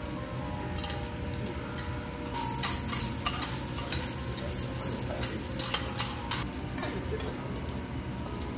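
Food sizzling on a steel teppanyaki griddle, with scattered light clinks and taps of utensils through the middle of the stretch.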